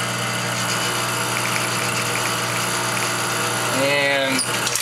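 Expobar Brewtus espresso machine's pump humming steadily as it drives water through the coffee during a shot extraction, then cutting off right at the end as the shot is stopped.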